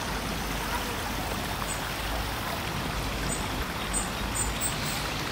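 Small stream trickling over rocks into a pond: a steady, even rush of water. Faint short high chirps come now and then over it.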